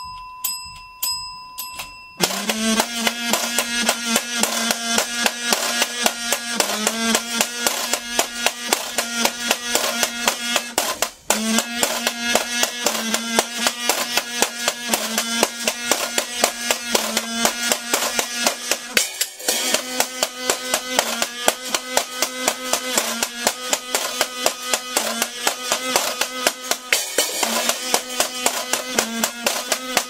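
A bell mounted on a washboard rings over light tapping. About two seconds in, a kazoo comes in with long buzzing notes held near one pitch, breaking off briefly now and then, over a fast, steady scraped and tapped washboard rhythm.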